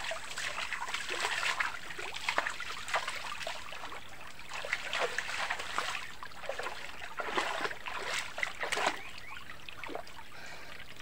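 Water splashing irregularly as a person bathes in a flowing river, over the steady trickle of the stream; the splashing eases off near the end.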